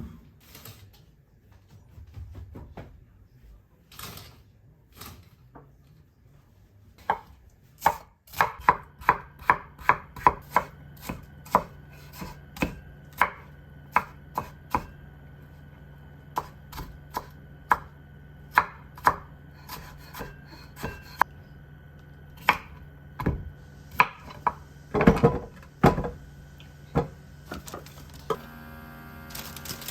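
Kitchen knife chopping vegetables on a cutting board: a few scattered strokes, then from about eight seconds in a steady run of sharp knocks, two or three a second, over a faint steady hum.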